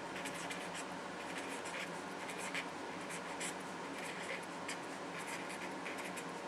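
Handwriting: a run of short, faint scratching strokes as something is written out on a writing surface.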